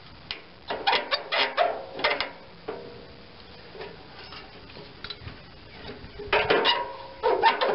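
Locking pliers clicking and scraping against a garden tractor's steel hood hinge pin as the pin is twisted and pulled out, in two spells of metallic clicks: one about a second in and one near the end.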